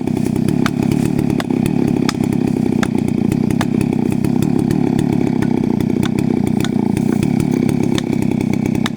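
Chainsaw running steadily while cutting into a tree, with scattered sharp ticks over it.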